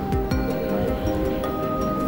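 Background music: soft, sustained notes that change pitch a couple of times.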